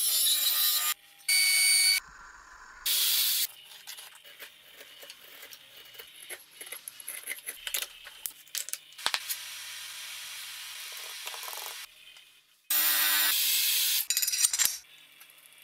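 Workshop woodworking sounds in quick succession: short, loud bursts of power tools cutting wood, a table saw in the first few seconds and a planing machine near the end. In between come quieter scraping, tapping and clicking from hand work fitting wooden handle scales.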